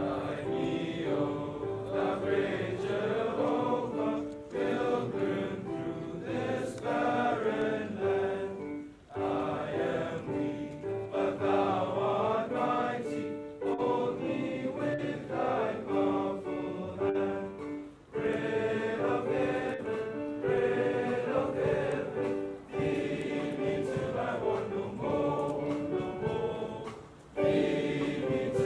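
A large choir of schoolboys singing together, phrase after phrase, each few-second phrase followed by a brief pause.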